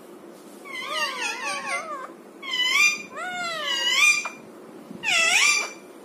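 Parakeet giving a run of wavering, warbling whining calls, four in all, with short gaps between them.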